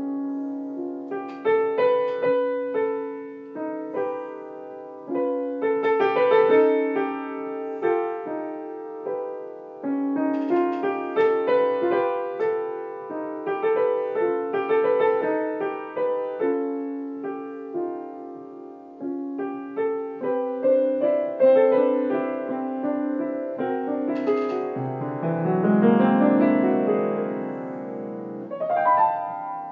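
Piano improvising on the whole-tone scale, the left hand on C–D–E and the right on F♯–G♯–A♯, with notes struck in short, shifting phrases. Near the end a deep low note is held while a rising run builds over it, all ringing on together.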